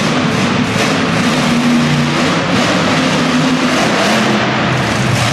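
Storm Damage monster truck's supercharged V8 running loud and being revved, its pitch wavering up and down.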